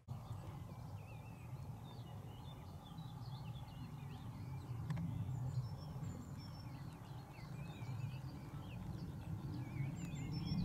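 Songbirds singing: many short chirps and warbling phrases throughout, over a low, steady rumble.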